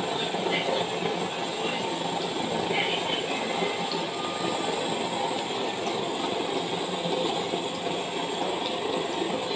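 Samosas deep-frying in hot oil in an iron kadai: a steady, dense sizzle.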